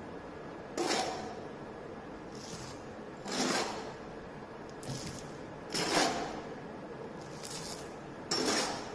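Damp sand being poured into a plastic measuring cylinder in four short pours, about every two and a half seconds.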